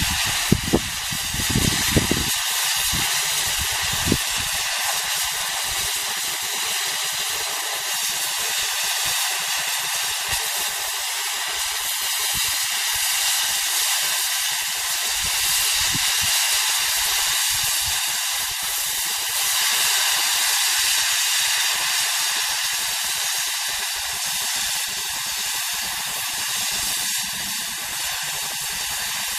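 Oxy-fuel cutting torch hissing steadily as it cuts through a steel bar, with a few low thumps in the first couple of seconds.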